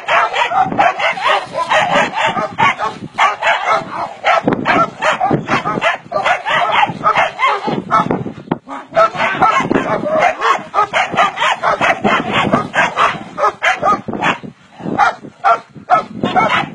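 Several shut-in dogs barking and yapping continuously, rapid overlapping barks with only brief pauses.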